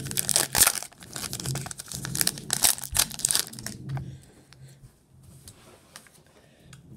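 Foil wrapper of a 2020 Playoff football card pack being torn open and crinkled by hand, dying down about four seconds in to a few faint ticks.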